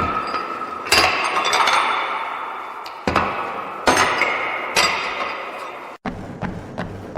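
Metal gym equipment clanking: five sharp metallic clanks, each ringing and fading slowly. About six seconds in the sound cuts off abruptly, and a steady rhythm of light, quick taps follows, about three a second.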